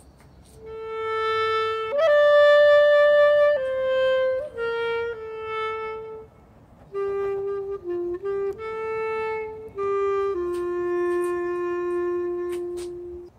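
Background music: a slow, unaccompanied melody on a single reed instrument of the clarinet or saxophone kind. About a dozen held notes drift downward, with a short pause halfway through, and it ends on a long low note.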